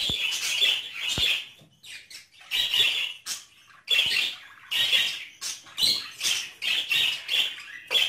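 Several caged budgerigars chattering: a continuous run of short, shrill chirps and squawks following close on one another.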